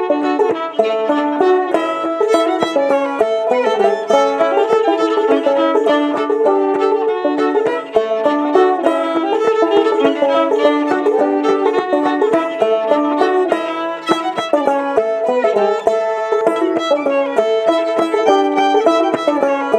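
Clawhammer banjo and fiddle playing an old-time tune together: a steady, driving rhythm of picked banjo notes under the fiddle's bowed melody. It is a crooked tune, with irregular phrase lengths.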